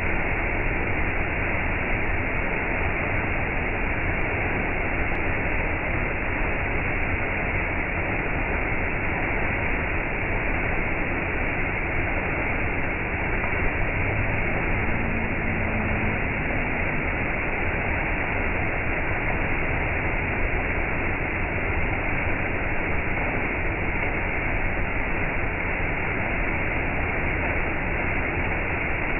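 Small waterfall pouring over a rock ledge onto stones in a shallow pool: a steady, unbroken rush of falling water.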